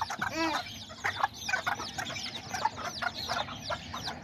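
A brood of bantam chicks peeping constantly, many short rising-and-falling cheeps overlapping, with a mother hen clucking about half a second in.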